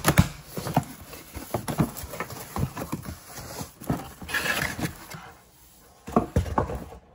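Cardboard shipping box being opened by hand: flaps pulled apart and a molded paper-pulp insert lifted out, with rustling and scraping and many small knocks and taps against the cardboard. A stronger rustle comes about halfway through, and two louder knocks near the end.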